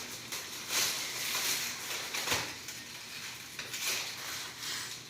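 Wind-driven rain pouring down: a steady hiss that swells and eases.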